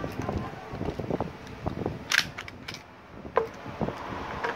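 Hard plastic clicks and knocks from a Fobus polymer paddle holster as an airsoft 1911 pistol is handled and drawn back out of it. There is one sharp snap about two seconds in and a softer click about a second later.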